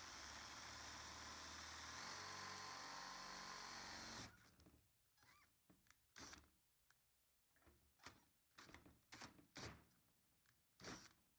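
Cordless drill running steadily as it bores a pilot hole through a car's metal boot lid, its pitch shifting slightly about two seconds in. After about four seconds it stops abruptly, and a string of short, sharp bursts follows.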